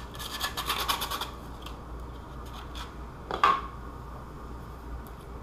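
Sandpaper rubbed in quick back-and-forth strokes on a white plastic armour piece, roughening the surface so the glue will bite; the sanding stops about a second in. A little past halfway comes one short, louder scrape.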